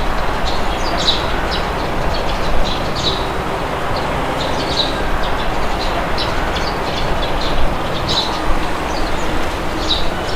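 Steady wind rushing, with birds chirping in short calls scattered throughout.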